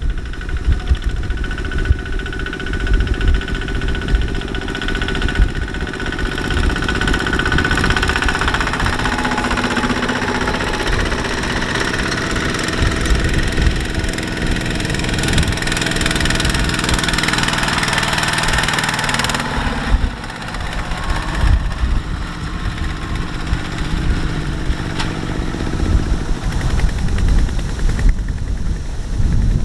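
Kubota ZT155 walking tractors' single-cylinder diesel engines chugging steadily as they pull loaded rice trailers past. The sound changes abruptly about two-thirds through.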